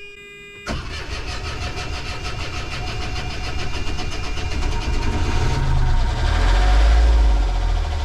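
Volvo Penta marine engine being cranked on its starter for several seconds, catching about six seconds in and running up louder; it took a long crank after a month unused. The low-oil-pressure alarm buzzer is heard briefly at the start.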